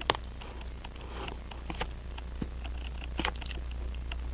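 Scattered light clicks and taps of small tools against a Hamilton 910 pocket watch movement as a hand is fitted, irregularly spaced, over a steady low hum.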